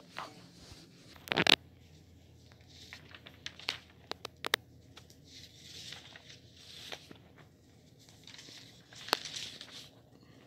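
Sheets of lined notebook paper rustling as pages are handled and shifted by hand, with scattered light clicks and one sharp knock about a second and a half in.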